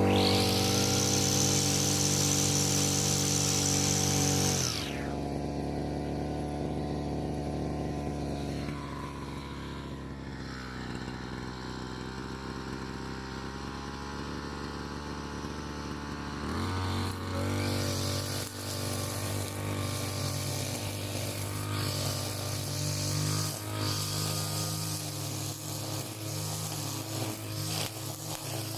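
Petrol brush cutter with nylon trimmer line running at high speed with a bright whir. About five seconds in it drops to idle. Near 17 seconds it is throttled up again, its speed rising and falling unevenly.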